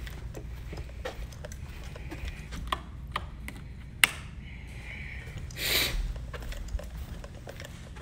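Handling noise from a hand-held phone as a person walks over carpet: scattered small clicks and rubbing over a low rumble, with one sharp click about four seconds in and a short burst of rushing noise just before six seconds.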